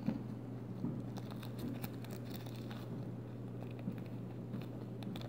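Matte white plastic card sleeves and their clear plastic wrapper being handled, giving scattered small crinkles and clicks.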